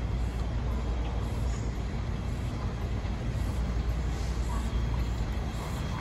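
Steam locomotive running light, tender-first, approaching slowly with a steady low rumble.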